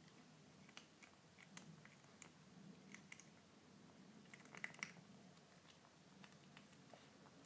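Kitten eating dry kibble: faint, irregular crunches as it chews, with a short run of louder crunches about four and a half seconds in.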